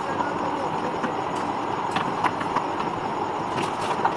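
Spanner tightening the nuts on a bed's hydraulic lift fitting, with scattered light metallic clicks over a steady background rumble.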